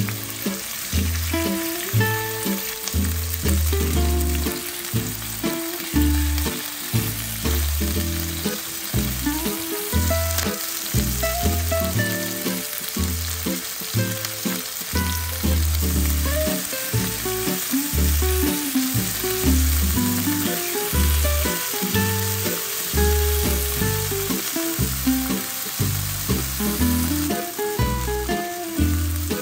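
Chicken breasts sizzling steadily as they sear in oil in a nonstick frying pan, under background music.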